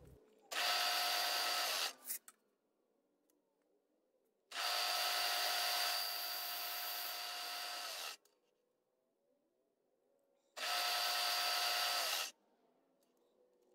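Milling machine spindle running with a boring bar cutting a hole in cast aluminium, a steady whine with a few fixed tones. It comes in three stretches of about one and a half, three and a half and one and a half seconds, each starting and cutting off suddenly, with silence between.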